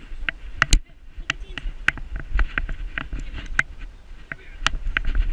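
Irregular sharp clicks and knocks, two or three a second, over a low rubbing rumble, from a GoPro strapped to a dog's back in a Fetch harness as the dog moves around.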